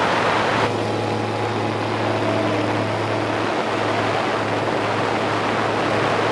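Zenith CH 701 light aircraft's engine and propeller running steadily, a low even hum. At first it is half covered by loud wind rush on a camera mounted outside on the wing strut, which gives way less than a second in to the engine heard more plainly from a camera at the cowl.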